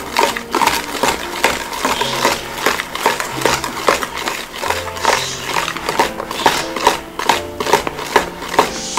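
Background music with a bass line, over quick irregular clicking and scraping of a hand whisk beating cake batter against a plastic mixing bowl.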